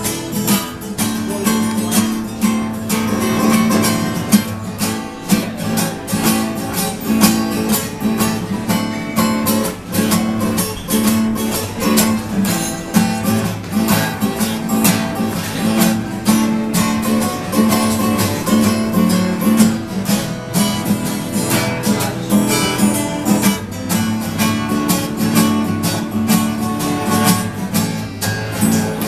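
Acoustic guitar strummed in a steady rhythm, ringing chords throughout.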